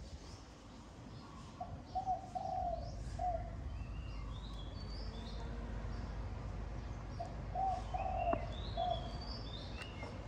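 A dove cooing: two matching phrases of three low notes, about five seconds apart. Small birds chirp higher up between and after them, over a steady low background rumble.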